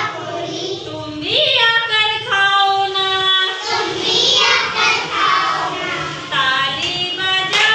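A child singing, holding long notes with a rising slide in pitch about a second and a half in.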